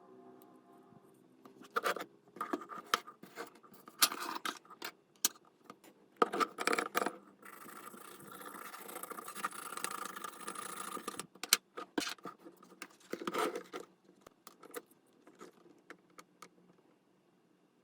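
Small hard parts being handled: irregular clicks, taps and scrapes of plastic and metal, with a steady hiss lasting about three seconds in the middle.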